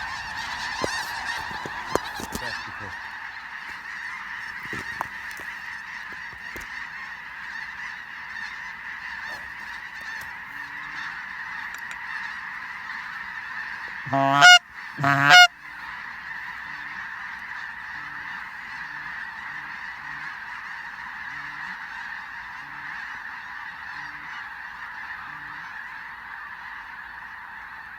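A huge flock of snow geese calling overhead: a dense, continuous clamour of many overlapping honks. About halfway through, two loud, wavering calls stand out above the clamour, one right after the other.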